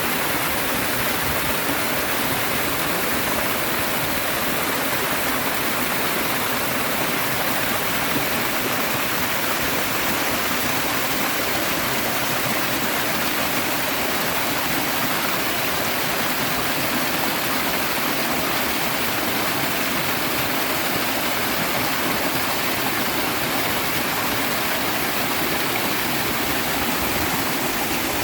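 Steady rush of a river and waterfall, flowing water with an even hiss and no breaks.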